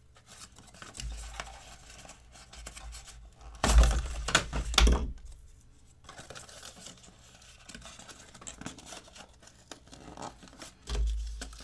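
Cardboard box packaging being handled: low rustling, then a loud scraping tear lasting about a second, starting nearly four seconds in, as the glued-in foam tray is pulled out of the box. Dull handling bumps about a second in and near the end.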